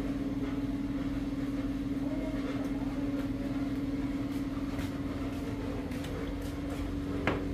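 A motor or engine running with a steady, constant hum at one pitch, with a single sharp click near the end.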